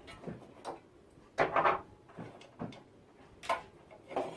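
Screws and hardware being handled against a metal computer case: a series of short knocks and rattles, loudest about a second and a half in.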